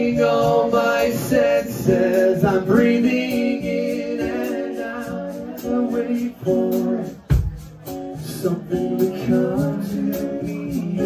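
Live band playing a song: a man singing over strummed acoustic guitars, with one sharp thump about seven seconds in.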